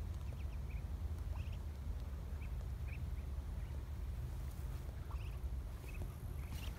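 Muscovy ducklings peeping, short high calls every half second or so with gaps, over a steady low rumble.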